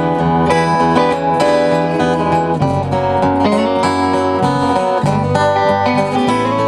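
Live acoustic country-folk band playing a song's instrumental intro, led by strummed acoustic guitar, with low notes changing every couple of seconds.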